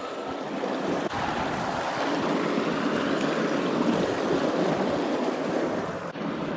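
Steady rush of flowing river water, a little louder from about a second in.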